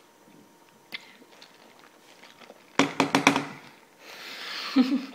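Muffled vocal sounds from a boy with a mouthful of six sour candies, reacting to the sourness: a quick run of strained, pitched bursts about three seconds in, then a hissing breath and a short grunt near the end.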